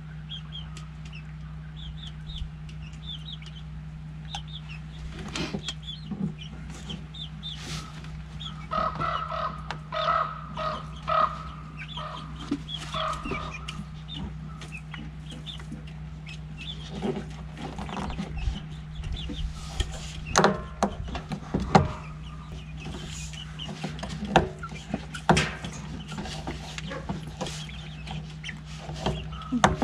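Hens clucking and calling in a coop, with a run of clucks about a third of the way in. From just past halfway come sharp clicks and knocks of plastic pipe fittings being handled and fitted, over a steady low hum.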